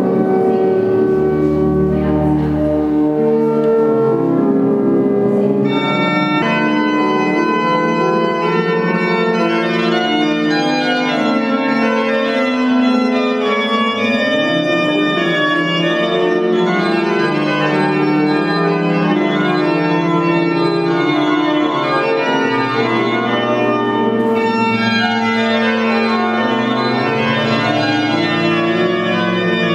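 Organ music: slow, sustained chords that shift every second or two, with deep bass notes joining in places.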